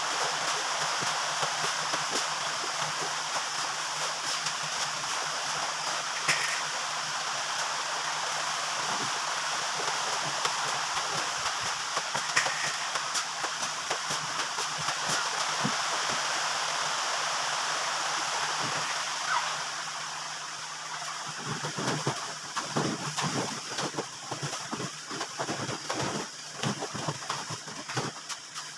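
A steady rushing noise with a faint low hum fades about twenty seconds in, leaving irregular knocks and taps of hand plastering work on a concrete ceiling.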